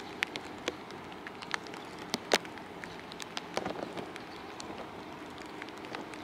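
Rain falling, with irregular sharp taps of single drops landing close to the microphone over a steady hiss; one tap about two seconds in is louder than the rest.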